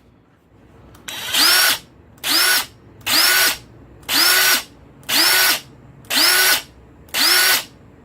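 Craftsman C3 19.2-volt cordless power tool's motor, running off a fully charged Milwaukee M18 4 Ah battery through a homemade adapter, triggered in seven short bursts about once a second: each time it whirs up to speed, runs for about half a second and winds down.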